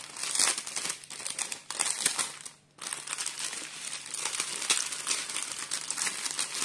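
Clear plastic bags crinkling and rustling as small packets of diamond painting rhinestones are handled and pushed back into a cellophane bag. The rustling stops briefly about two and a half seconds in, then carries on.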